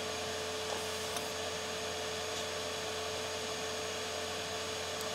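Hot air rework station blowing steadily, an even airy hiss with one constant tone in it, as it heats a small component to desolder it from a phone logic board.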